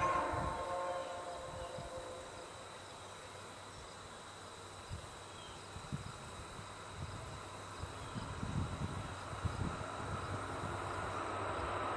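Distant VIA Rail F40PH-2 diesel locomotive (EMD 16-cylinder two-stroke engine) approaching with its train; a horn chord dies away in the first second or so, then the low rumble of engine and wheels on rail slowly grows louder toward the end.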